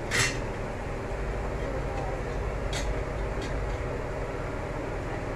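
A steady low rumbling hum in the kitchen, with a sharp clink just after the start and two fainter clicks about three seconds in.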